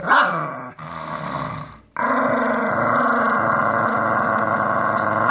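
Lhasa apso growling with bared teeth: a short growl, a brief break just under two seconds in, then one long steady growl.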